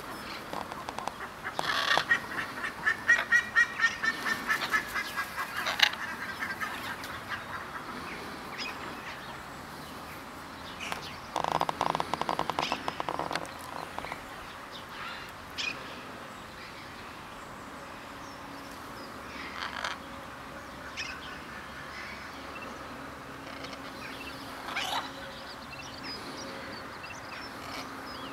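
Macaws calling: a run of rapid, pulsed chattering calls lasting a few seconds, another loud rapid burst near the middle, then scattered single calls.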